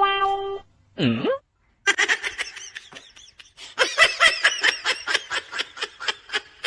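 A person laughing hard in quick repeated bursts, starting about two seconds in. Just before it come a short pitched tone and a brief swooping sound.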